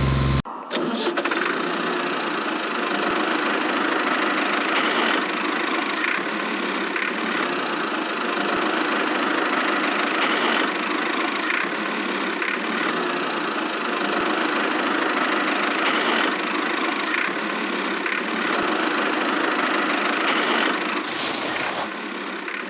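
Small motor of a homemade miniature machine running steadily, with a few faint clicks.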